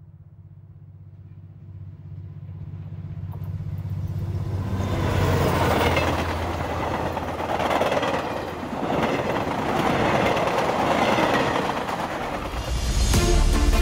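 A train approaching and passing: a low hum at first, then rushing wheel-on-rail noise that fades in, grows loud and swells and eases a few times. Music comes in near the end.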